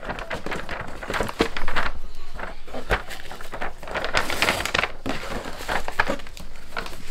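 A paper gift bag with a clear plastic window rustles and crinkles as it is handled open and a filled tin bucket is set down inside it. A few light knocks of the bucket and contents come through the rustling, and the crinkling is loudest about four seconds in.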